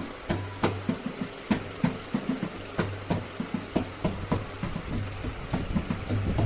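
Dholak, a rope-laced two-headed barrel drum, played by hand in a quick, even rhythm: sharp slaps on the small head over deep booming strokes on the bass head.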